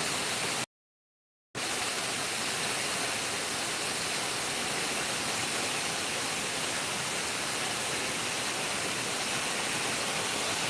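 Water pouring over Lake Clementine Dam, a steady, even rush of falling water. The sound cuts out completely for under a second near the start, then returns unchanged.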